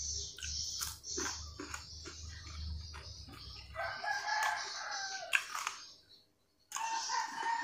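A rooster crowing twice, one long call about four seconds in and another starting near the end, over soft clicks of food being handled and eaten by hand.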